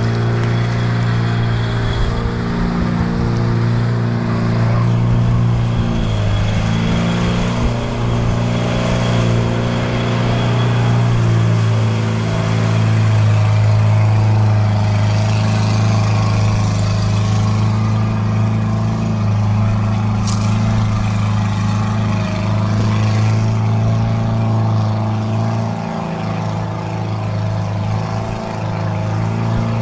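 Toyota LN167 Hilux's 5L four-cylinder diesel engine running steadily under load as the ute wades through floodwater: a constant drone that dips briefly a couple of times near the end.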